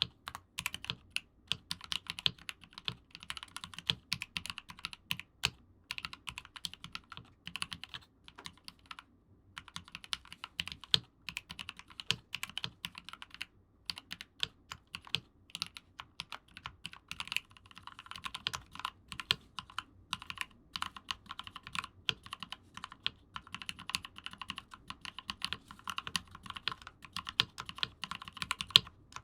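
Continuous typing on a mechanical keyboard with GMK keycaps and lubed, filmed Gateron Ink switches, a dense run of key clacks with two short pauses. About two-thirds of the way through, the typing moves to lubed, filmed Gateron Silent Ink switches.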